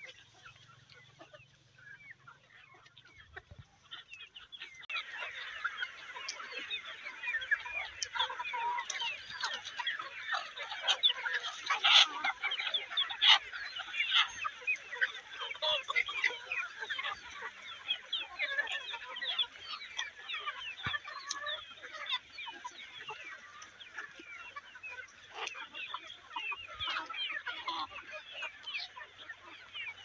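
A flock of free-range chickens clucking and calling, a dense overlapping chatter of many short calls that sets in about five seconds in, with a few louder sharp calls near the middle.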